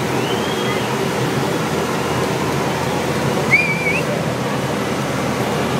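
Steady outdoor din from a crowd of onlookers and the shuttle's transporter rolling past, with a short wavering whistle a little past halfway.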